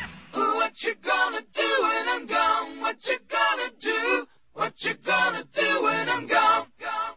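Unaccompanied singing voice with no instruments, in short a cappella phrases split by brief gaps.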